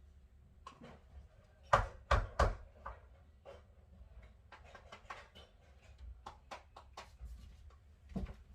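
Three sharp knocks close together about two seconds in, then a string of lighter clicks and taps: hard objects being handled and set down.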